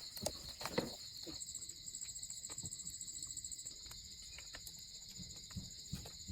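Steady high-pitched insect chorus, a continuous trilling drone. For about two seconds a second, higher pulsing insect call joins it. Scattered light clicks and knocks sound underneath.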